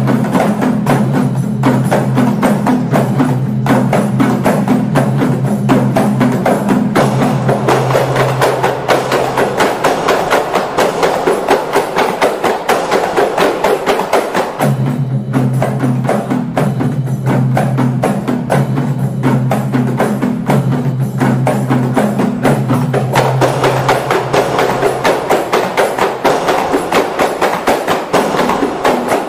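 Music driven by fast, dense hand-percussion strikes. A low held bass line sits under it, drops out around eight seconds in and returns around fifteen seconds in.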